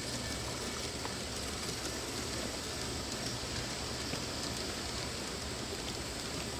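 Steady rolling rumble and hiss of a G-scale model train running along its track, with no distinct chuffs, clicks or whistle standing out.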